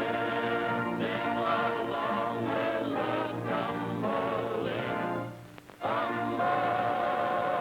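Vocal group singing in harmony with musical accompaniment. The song breaks off for a moment about five seconds in, then resumes on a long held chord, like a film's closing song.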